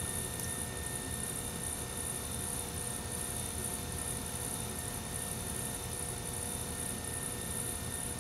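Brent electric potter's wheel running with a steady hum while it spins the wet clay.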